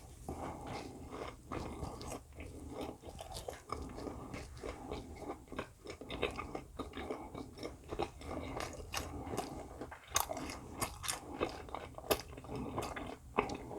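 A person chewing and biting food close to the microphone, with irregular short clicks and soft crunches of the mouth working.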